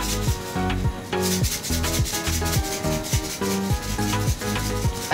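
Background music with a steady beat: a bass line, a kick drum roughly twice a second and bright, dry percussion on top.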